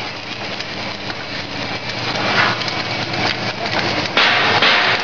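Automatic welding machine at work: a steady crackling hiss over a low machine hum, swelling briefly about two and a half seconds in and again near the end.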